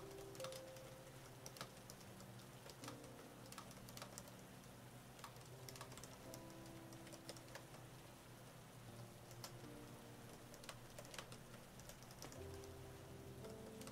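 Soft, irregular key clicks of typing on an AlphaSmart portable word processor's keyboard, coming in quick runs with short pauses.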